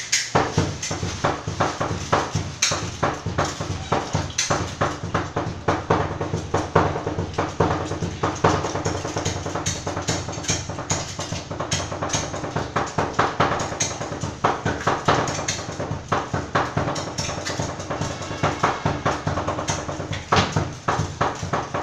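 Knives chopping sisig on a chopping board in a fast, steady drum-like rhythm, several chops a second.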